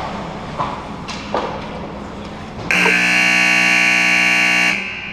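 Ice rink scoreboard buzzer sounding one loud, steady blast of about two seconds, starting a little past halfway. Before it, a few sharp knocks from play on the ice.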